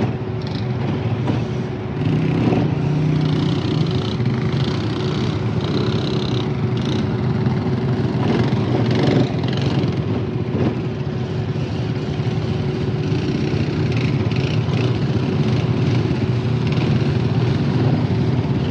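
ATV engine running steadily as the ATV is ridden, a continuous drone.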